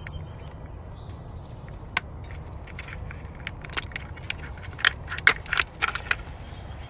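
Sharp plastic clicks and snaps as the locking tab is worked and the electrical connector is pulled off the ignition coil pack: one click, then a quick run of clicks about four seconds in. A steady low hum runs underneath.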